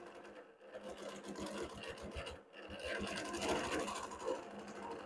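Innova Classic 22-inch longarm quilting machine stitching, its needle running in rapid strokes while free-motion quilting feathers, with the stitching briefly dropping off twice.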